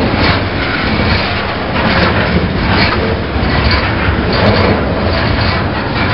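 Freight train cars rolling past at close range: a steady rumble and rattle of wheels on rails, with a knock about once a second as wheels pass over the rail joints.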